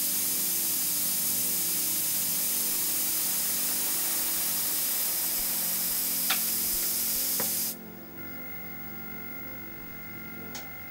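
An airbrush spraying air makes a steady hiss that cuts off suddenly about three-quarters of the way through. That leaves the low, steady hum of a Hansa HTC 15a silent oil-lubricated tank compressor running.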